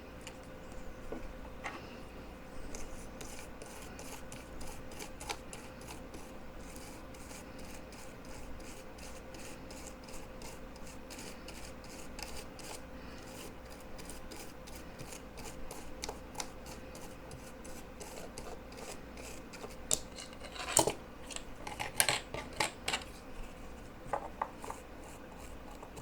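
Scrubbing a laptop circuit board with 99% isopropyl alcohol to clean it up after soldering: quick, even scratchy strokes, several a second, then a few louder clicks and taps near the end.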